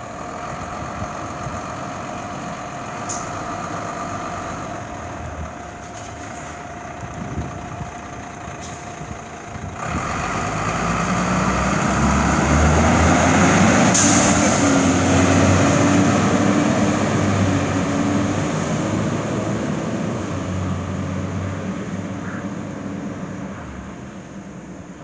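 Fire engine's diesel engine running steadily, then growing louder as the truck pulls out and moves off, and fading away as it drives down the street. A short sharp hiss of the air brakes comes about halfway through, at the loudest point.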